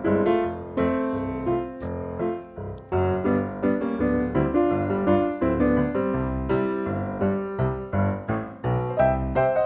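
Background music: a light silent-film-style piano tune with a steady rhythm.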